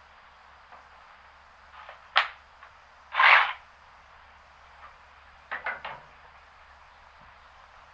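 A few sharp knocks and clunks: one about two seconds in, a louder half-second clatter just after three seconds, and three quick knocks near six seconds, like tools or parts being handled and set down.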